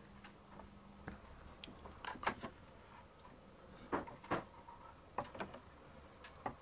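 Irregular light taps and clicks, some in quick pairs, from a car knock sensor and its oscilloscope probe leads being handled.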